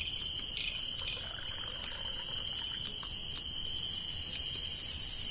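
A steady, high insect trill, cricket-like, with a faint hiss above it.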